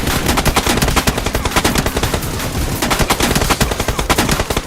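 Rapid, continuous automatic gunfire: a dubbed-in machine-gun sound effect of many shots in quick succession.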